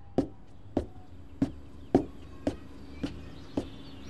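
Footsteps walking at a steady pace, just under two steps a second, each step a sharp knock on a hard surface.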